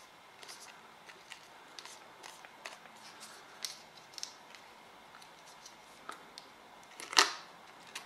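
Small scattered clicks and ticks of a clear plastic CPU tray being handled as thermal paste is spread on the processor, with one sharper, louder click about seven seconds in.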